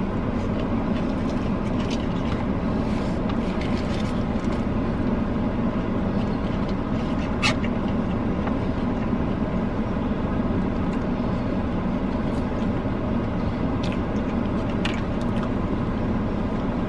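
Steady low hum of a running car heard from inside the cabin, with a couple of faint short high sounds over it about halfway through and near the end.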